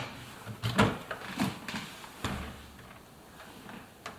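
A series of handling knocks and clicks at a front-loading washing machine's door opening, from working the new rubber door seal and door into place. The louder knocks come in the first two and a half seconds, then lighter taps follow.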